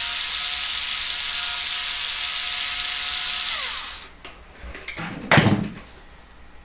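Small power driver running steadily as it turns the case stretcher's threaded stem through the reloading die, then winding down in pitch and stopping about four seconds in. A single loud knock follows about a second later.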